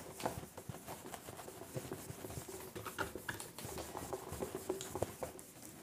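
Cloth wiping marker writing off a whiteboard: faint, irregular rubbing and light scuffs.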